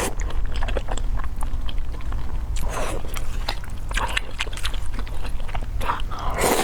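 Close-miked eating of sticky, saucy spicy fire noodles: wet chewing with many small mouth clicks, and two longer slurps, about three seconds in and near the end.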